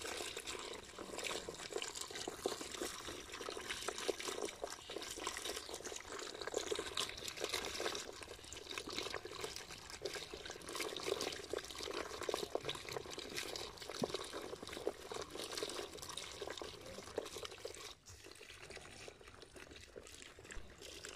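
Water pouring and splashing from a fish-trap outlet into a woven bamboo basket, small fish tumbling in with it. The sound drops quieter a few seconds before the end.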